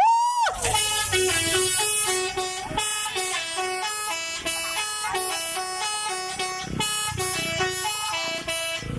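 Telolet horn playing a fast melody: a short rising whoop, then a quick run of changing horn notes.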